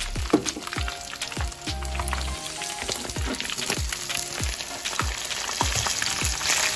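Fish fillets deep-frying in a pan of hot oil, sizzling steadily, over background music with a steady beat.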